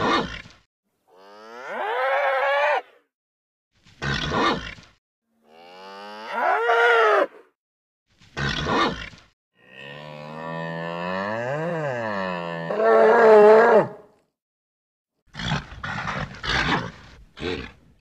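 A bull calling in a series of separate moos, some short and some rising in pitch. The longest call lasts about four seconds, and the calls are cut apart by abrupt silences.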